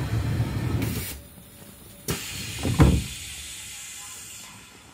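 Electric commuter train standing at a station platform: a low rumble, then a short hiss of air, then a click and a heavy thump about three seconds in, typical of the train's pneumatic sliding doors closing.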